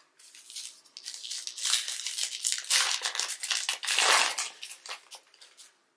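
Foil wrapper of a trading-card pack crinkling and tearing as it is opened, loudest from about two to four seconds in.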